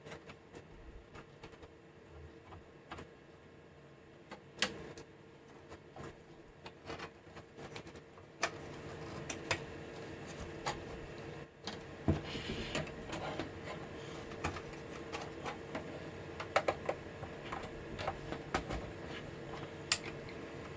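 Scattered light clicks and knocks of hands handling ribbon cables and the metal drive cage inside an open desktop computer case, over a steady hum. About eight seconds in the background noise gets louder and stays up.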